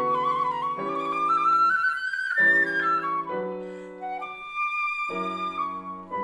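Concert flute and grand piano playing a classical polonaise. The flute climbs in a rising line for the first two seconds or so, then holds longer notes, while the piano strikes chords underneath.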